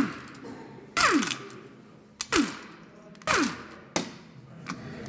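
Pneumatic wrench run in three short bursts about a second apart, each winding down with a falling whine, as it undoes the bolts of a manual gearbox's selector housing. A brief click comes near the end.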